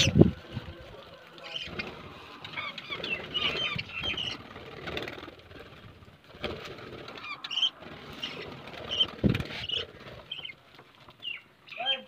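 A flock of budgerigars chirping and chattering in short high notes while feeding on seed, with wing flaps and a couple of dull thumps, one just after the start and one about nine seconds in.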